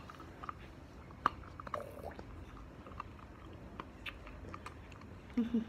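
A beagle chewing a crunchy dog treat: irregular crisp crunches and bites, a few sharper than the rest.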